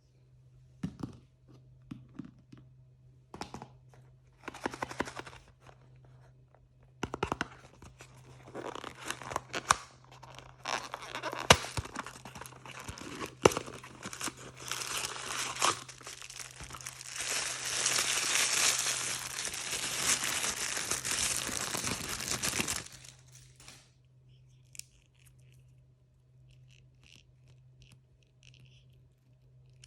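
Blind bag packaging being torn open and crinkled by hand. It starts with scattered crinkles and clicks, then about fifteen seconds of continuous crinkling and tearing, loudest just before it stops abruptly. A low steady hum runs underneath.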